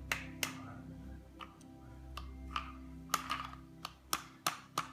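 Plastic toy tools clicking and tapping irregularly against a toy car, the taps coming faster in the second half, over a faint steady hum.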